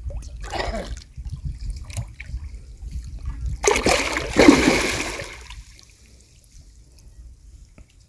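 A hooked carp thrashing at the water's surface, splashing hard in one burst of about two seconds that starts a little over three and a half seconds in.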